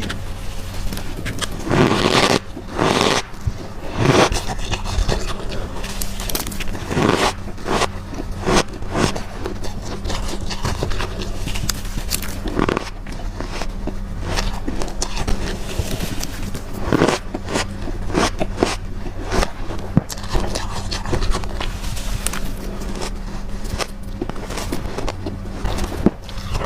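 Close-up crunching and scraping of flavoured humidifier frost (freezer frost) being bitten and chewed, in irregular bites with a few denser bursts of crunching. A steady low hum runs underneath.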